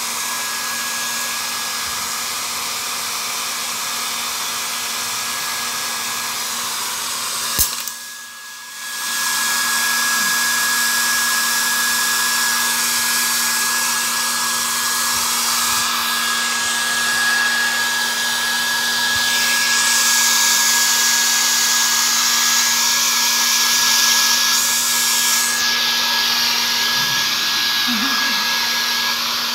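Hair dryer blowing steadily with a constant whine, drying a Persian cat after its bath. Near eight seconds in it clicks, cuts out for about a second and comes back on louder.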